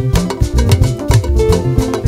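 Live band playing an upbeat dance groove on guitars, bass and percussion, with no singing, the percussion striking at an even pace.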